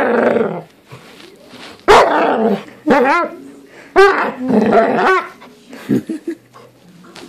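A dog making a run of short, pitched barks and growly, yowling vocalizations, about five separate outbursts with gaps between.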